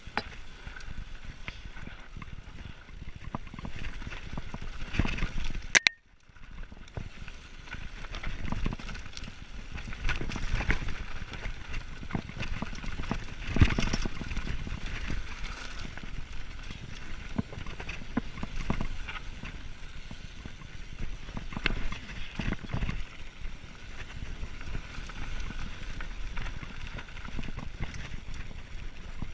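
Mountain bike rolling fast downhill over loose stones and gravel: tyres crunching and the frame and parts rattling with many small knocks over a steady low rumble. A sharp crack about six seconds in is followed by a moment of near silence, then the rattling resumes.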